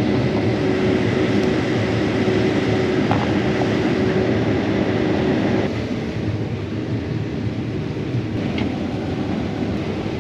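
Combine harvester running steadily: a loud, constant machine hum with a faint steady whine that drops away, the whole sound easing slightly, a little past halfway.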